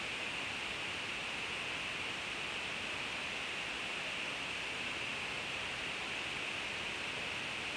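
Steady, even hiss with no other events.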